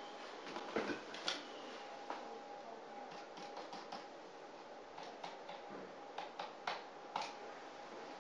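Irregular light clicks and taps, from a corded desk phone being picked up and its number keys pressed, over a faint steady hum of room tone.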